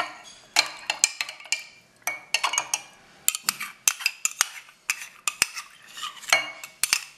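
Metal spoon stirring in a glass pitcher of milk and condensed milk, clinking against the glass again and again at an uneven pace.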